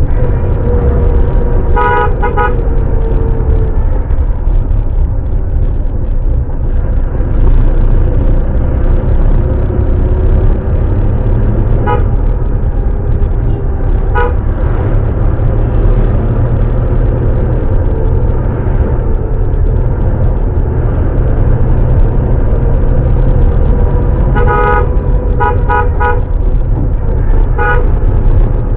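Steady low rumble of a car driving on the road, heard from inside the vehicle, with short car-horn toots: a double toot about two seconds in, single toots twice in the middle, and a run of quick toots near the end.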